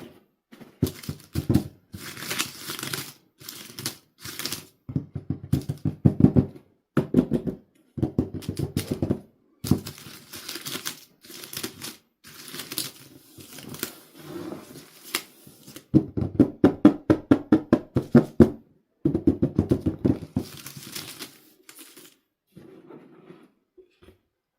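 Toy packaging being handled and opened by hand, with stop-start bursts of plastic and cardboard crinkling, tearing and rapid clicking.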